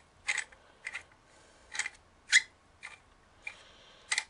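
Short scraping strokes of a screw thread being turned by hand as the microphone is screwed back into its stand mount, about seven rasps at uneven intervals with pauses between.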